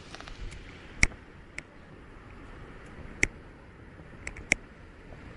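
A handful of sharp, irregularly spaced clicks, the loudest about a second in, one a little past three seconds and a close pair near the end, over a low steady hiss.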